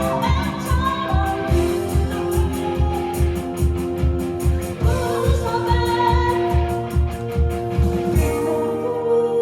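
Live band playing a pop song with a singer, guitar and a steady kick-drum beat; near the end the drums drop out and the band holds a sustained chord.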